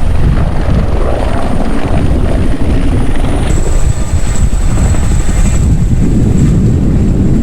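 Firefighting helicopter flying close by, its rotors and engine giving a loud, steady rumble.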